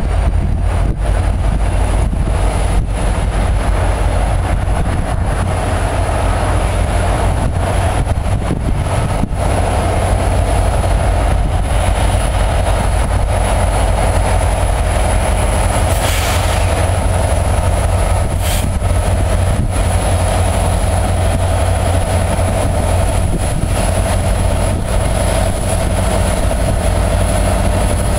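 EMD SD70ACe diesel-electric locomotive approaching and passing close by, its diesel engine giving a steady low rumble. A short hiss is heard about sixteen seconds in.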